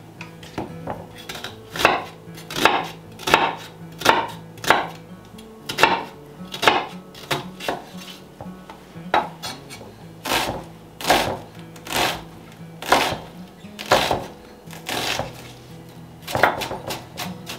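Chef's knife dicing an onion on a wooden cutting board: a run of sharp chops, roughly one a second, with a short pause around the middle.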